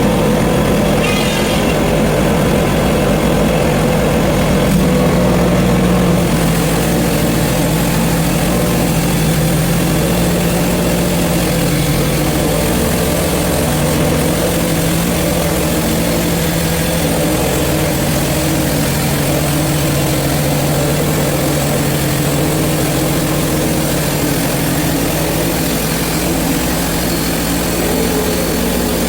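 Portable band sawmill's gasoline engine running steadily under load as the band blade cuts through a hard maple log. The engine note drops a little about five seconds in and then holds steady, with a hiss of the blade in the wood on top.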